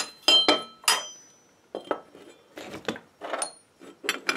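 Steel angle iron pieces being set down and shifted against each other on a wooden workbench: a string of irregular clinks and clanks, several with a brief metallic ring, the loudest about a second in.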